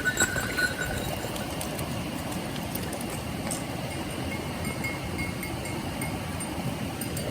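Mountain stream water rushing steadily over rocks. A short high whine sounds in the first second, and a few faint ticks and brief high notes come later.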